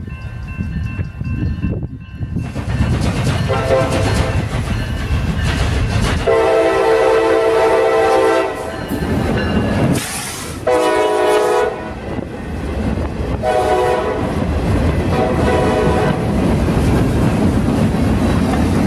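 CSX GP38-3 diesel locomotive blowing its air horn for a grade crossing in a series of blasts: a short one, a long one of about two seconds, then several shorter ones. Under the horn and after it runs the rumble and wheel clatter of the locomotive and its boxcars rolling over the crossing.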